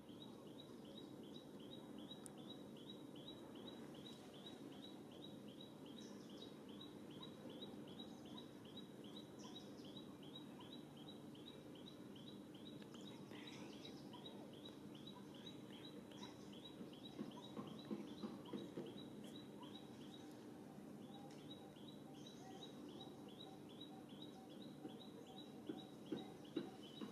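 Faint outdoor ambience with a small bird's high, short chirp repeated steadily about four times a second, pausing briefly about two-thirds in. A few soft knocks or rustles are heard around two-thirds of the way in and again near the end.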